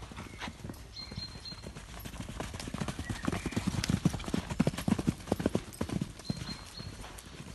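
Hoofbeats of two horses cantering loose on a sand arena: a quick, uneven run of hoof strikes that grows louder in the middle as the horses pass close by, then fades a little.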